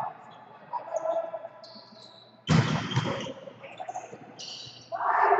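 Volleyball rally in a sports hall: a sudden loud ball hit about halfway through that rings in the hall, short high sneaker squeaks on the court floor, and a player's shout near the end.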